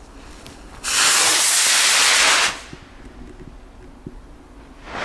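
Large firework rocket launching: its motor gives a loud rushing hiss starting about a second in, lasting under two seconds, then falling away as it climbs. The loud bang of its burst begins right at the end.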